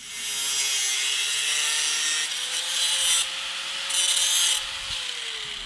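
Handheld angle grinder cutting steel, its motor whine steady under the hiss of the disc biting the metal. The whine winds down in pitch about five seconds in as the grinder is switched off.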